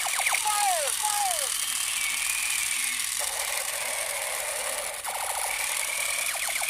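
Battery toy machine gun's electronic sound effects through its small speaker: rapid clicking gunfire bursts near the start and again near the end, with falling 'pew' tones in the first second and a half.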